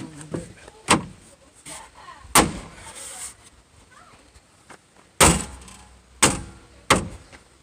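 Plastic trim panel clips being snapped into the door of a 2006 Ford E-350 Econoline van by hand: five sharp knocks a second or more apart, the loudest about five seconds in.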